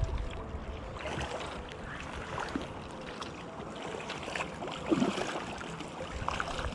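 Hooked steelhead thrashing and splashing at the surface of a shallow river as it is played in, over the river's flowing water. The biggest splash comes about five seconds in.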